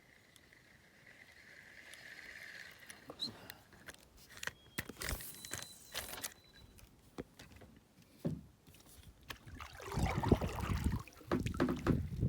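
Handling noise in a kayak: scattered knocks and rattles of fishing gear against the hull, loudest and densest near the end.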